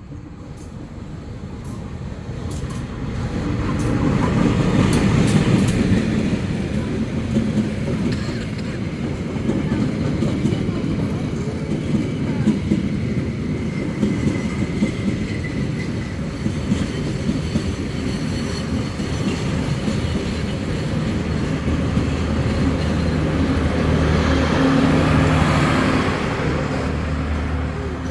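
A moving vehicle's engine and rumble, steady and loud. It swells louder about four seconds in and again near the end, with a steady low engine hum in the later part.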